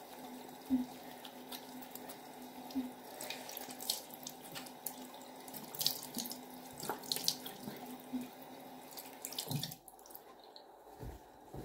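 Tap running into a bathroom sink, with irregular splashes as a face is rinsed with the hands; the water stops about ten seconds in.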